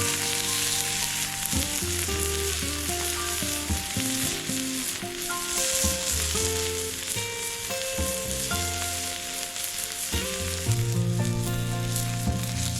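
Meat sizzling steadily on an extra-thick iron griddle, with background music.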